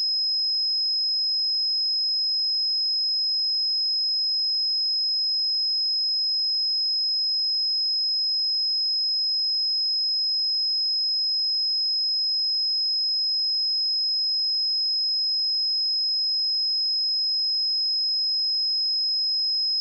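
A pure electronic sine tone at 5113 Hz, a single high-pitched steady note held at constant loudness, used as a speaker and headphone test signal.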